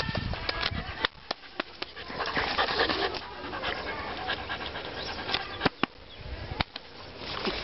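Rottweiler puppy panting with its mouth open and tongue out, in uneven breathy runs, with a few sharp clicks through it.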